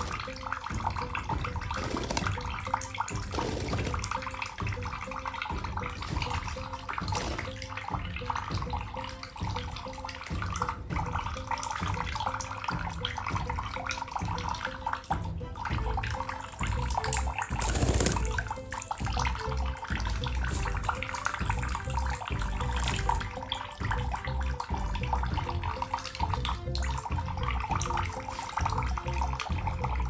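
Budgerigar bathing in a sink under a thin running tap: the water trickles steadily while the bird splashes and flutters its wet wings in it, with one louder splash a little past the middle.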